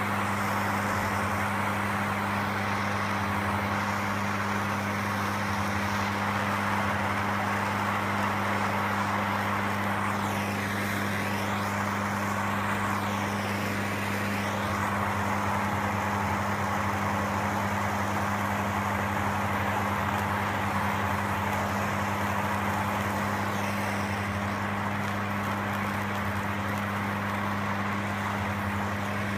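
Gas torch flame hissing steadily while heating tinning paste on steel body seams, over a constant low hum. The hiss swishes faintly now and then as the flame is moved.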